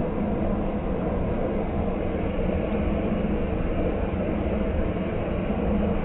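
Malkit combine harvester running steadily, its engine and threshing machinery whirring and rumbling without a break while the unloading auger discharges threshed wheat grain.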